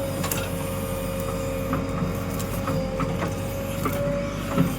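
JCB 3DX backhoe loader's diesel engine running steadily under a constant whine, with scattered short knocks and clanks, the loudest near the end.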